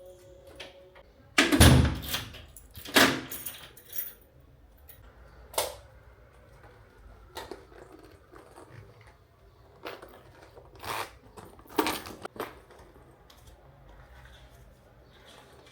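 A door shutting with a heavy thump about one and a half seconds in, then another knock and scattered light clicks and rattles of things being handled.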